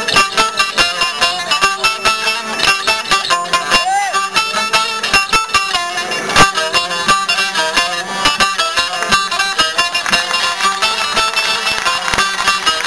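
Saz, a long-necked lute, playing a fast run of plucked notes in a Kurdish folk dance tune, amplified over stage loudspeakers.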